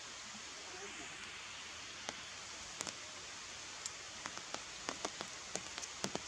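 Steady outdoor hiss with scattered sharp ticks and clicks, sparse at first and coming several a second in the second half.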